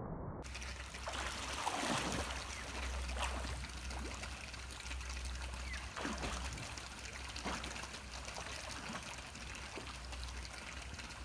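Swimming-pool water splashing and trickling around a swimmer paddling on her back, with a few louder sloshes among the steady splashing.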